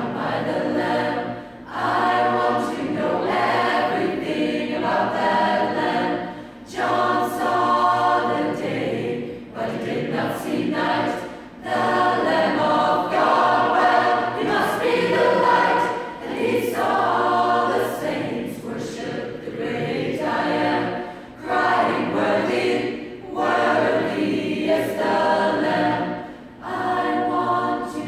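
A choir singing without accompaniment, in phrases a few seconds long with short breaks between them.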